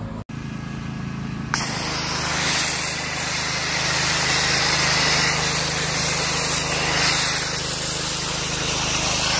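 Pressure washer motor running with a steady hum; about a second and a half in, a loud steady hiss of spray starts as a foam cannon lays thick foam on the car.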